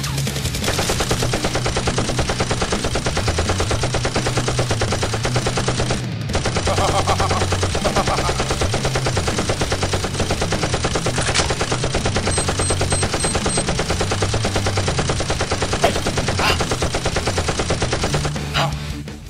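Sustained rapid automatic gunfire, many shots a second, with a short break about six seconds in. It fades out just before the end. These are gun sound effects laid over a Nerf blaster fight, not the blasters' own sound.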